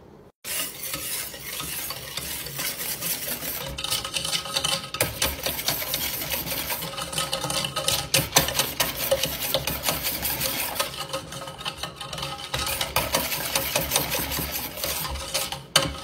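A wire whisk stirring cook-and-serve chocolate pudding mix in a stainless steel saucepan. The sound is a rapid, continuous scraping and clinking of the wires against the metal pot, starting about half a second in.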